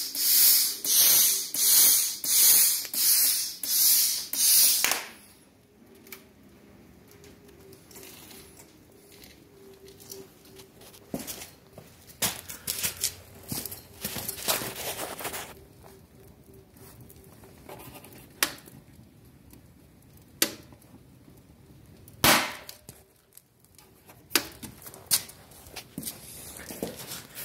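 Lotos LTP5000 plasma cutter's torch hissing in loud pulses about every 0.7 s, sputtering rather than holding a steady cutting arc, until it stops about five seconds in. After that a faint steady hum remains with scattered sharp clicks and knocks, the loudest a little after twenty seconds.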